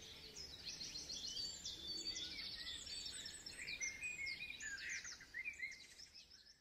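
Many birds chirping and trilling in quick bursts over a faint steady rush of falling water, fading out near the end.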